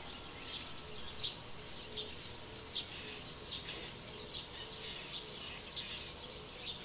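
Bird chirping in the background: short, high, falling chirps repeated a little more than once a second.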